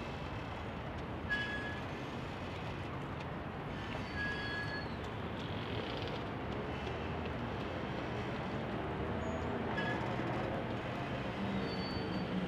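Steady hum of city traffic, with a few short, thin high-pitched tones over it: about a second in, around four seconds, and again near ten seconds.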